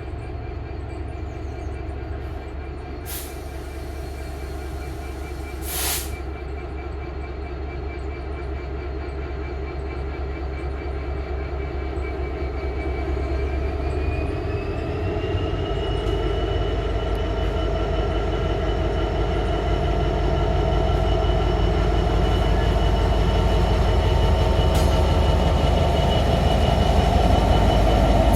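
Class 66 diesel locomotive's EMD two-stroke V12 engine working as it pulls away with a train of empty freight wagons. The engine note steps up in pitch about halfway through and grows steadily louder. There are two brief sharp noises in the first six seconds.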